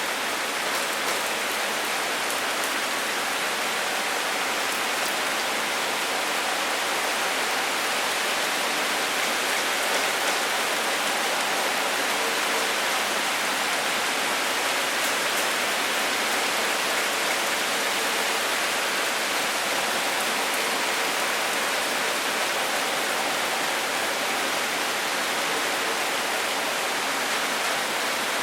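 Steady rain falling and pattering on a surface, an even dense hiss with faint scattered drop ticks.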